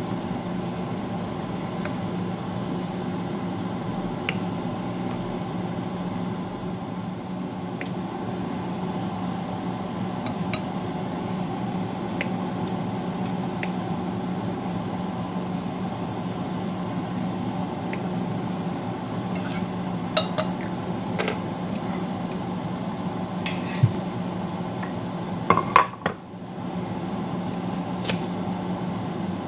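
Knife cutting boiled beets on a wooden cutting board, with scattered light taps and a few sharper knocks of pieces and utensils against the serving dish. The loudest knocks come in a cluster about twenty seconds in and near the end. A steady low hum runs underneath.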